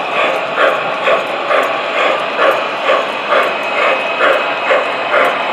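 Model steam locomotive's sound system chuffing steadily as it runs, about two chuffs a second.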